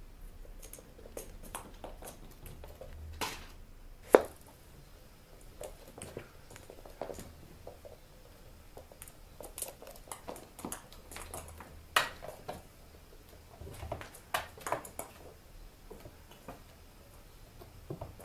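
Kittens playing with toys on a carpeted floor: scattered light taps, knocks and clatters as the toys are batted about. The sharpest knock comes about four seconds in and another about twelve seconds in.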